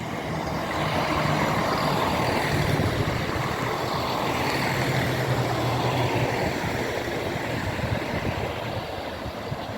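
CrossCountry Class 170 Turbostar diesel multiple unit coming into the station, its diesel engines running with a steady low note under the rumble of the train. It swells about a second in, holds, then slowly fades.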